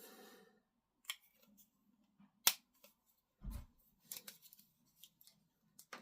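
Scattered small clicks and taps of tools and parts being handled on a modelling bench, with a sharp click about two and a half seconds in and a dull thump about a second later.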